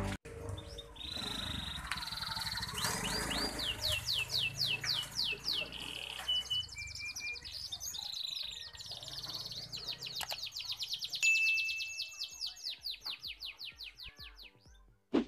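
Domestic canary singing: fast rolling trills of repeated sweeping notes, with a long steady whistle held about three-quarters of the way through.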